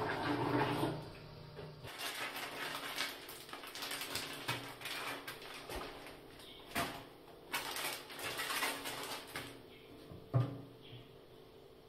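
Cleaning liquid poured from a plastic jug into a toilet bowl. It is followed by irregular rustling and handling, and a sharp knock a little after ten seconds as plastic bottles are moved about on a ceramic washbasin.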